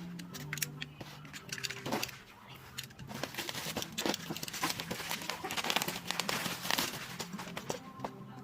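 Plastic packaging crinkling and rustling as it is handled, in a run of short crackles that grows busier partway through.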